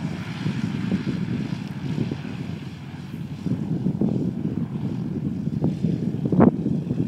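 Antonov An-2 biplane's radial engine and propeller running at low taxiing power with a steady rumble, with a few short thumps, the loudest about six seconds in.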